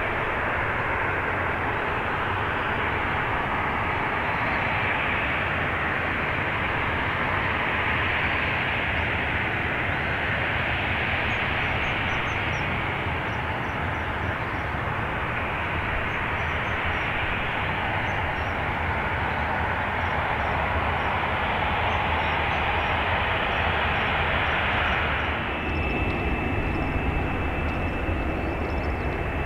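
Boeing 787-8 airliner's twin turbofan engines at takeoff power: a steady rushing jet noise that swells slowly as the plane rolls down the runway and climbs away. About 25 seconds in it cuts to a second 787-8 on the runway, its engines giving a steady high whine over a low hum.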